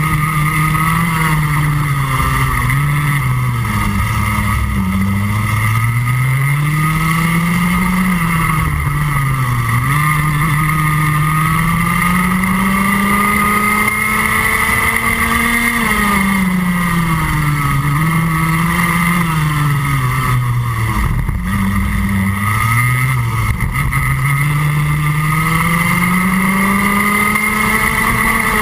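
Rotax Max Junior 125cc single-cylinder two-stroke kart engine heard close up from on board at racing speed. Its pitch climbs steadily along the straights and drops sharply each time the driver lifts for a corner, about five times.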